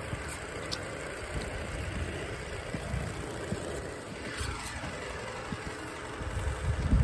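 Traxxas TRX-4 scale RC crawlers driving over pavement: an electric drivetrain whir with tyre noise, and a whine that falls in pitch about four seconds in. Wind buffets the microphone with low rumbles throughout, strongest near the end.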